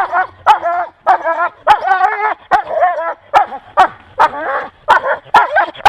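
Sled dogs barking and yelping in quick succession, about two high-pitched yelps a second: excited dogs held back on the command to wait, eager to start running.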